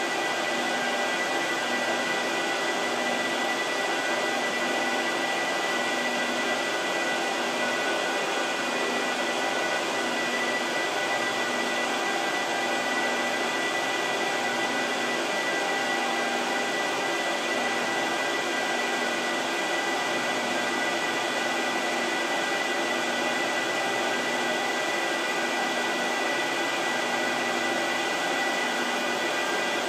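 Cooling fans of an Apple Xserve RAID and an Xserve 2008 server running at high speed: a steady loud whir with a constant high whine in it.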